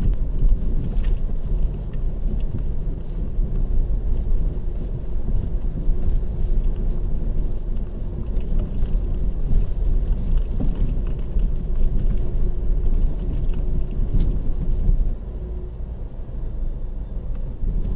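Motor vehicle running: a steady low rumble with a faint hum over it, which drops a little in level about fifteen seconds in.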